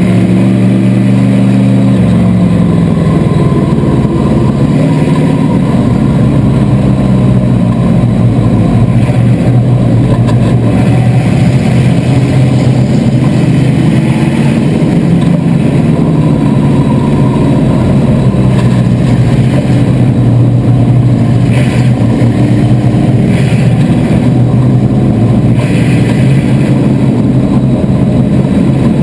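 A bomber-class stock car's Chevrolet 305 small-block V8, heard loud from inside the stripped cabin, running at low revs. The revs drop a little in the first two seconds, then hold fairly steady with small rises and dips as the car rolls slowly in a bunched pack.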